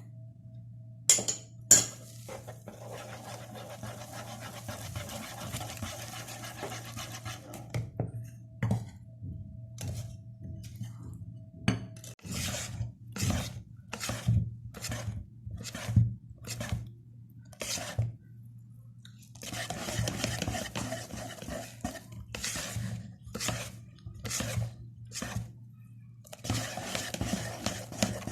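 A utensil clinking, scraping and tapping in a mixing bowl as flour is added and stirred into cake batter, with a run of evenly spaced taps midway.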